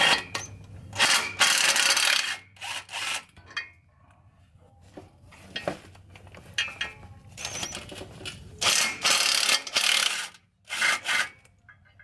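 A cordless power tool spinning the bolts of a clutch pressure plate on a Jeep Wrangler's flywheel, in several short bursts with pauses between.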